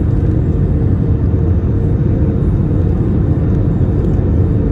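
Steady low rumble of an Airbus A321-231's IAE V2500 engines and rushing airflow, heard inside the cabin from a seat over the wing on final approach, with a faint steady hum above the rumble.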